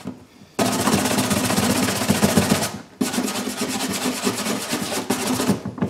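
Small wire brush scrubbed rapidly back and forth over a plastic lawnmower fuel tank, roughing up the plastic around a crack to prepare it for plastic welding. Two bouts of scrubbing, the first starting about half a second in and the second after a short break near the middle.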